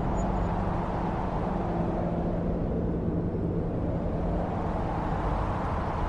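Steady low background rumble with a faint steady low hum under it, without changes or distinct events.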